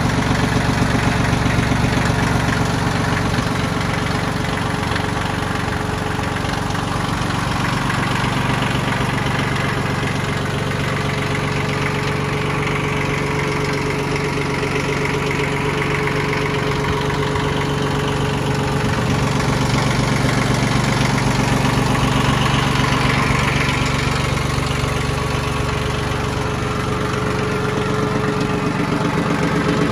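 Yanmar YM1610D compact tractor's diesel engine idling steadily.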